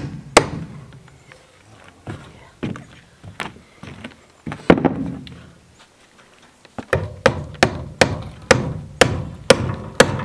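Claw hammer driving nails into the timber frame of a homemade hay feeder: a few scattered blows, a pause of a couple of seconds, then a steady run of strikes about two a second.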